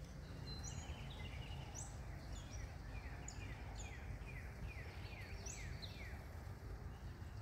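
Small birds singing in the trees: a run of quick, high chirps that sweep downward, repeated many times, over a low steady outdoor background noise.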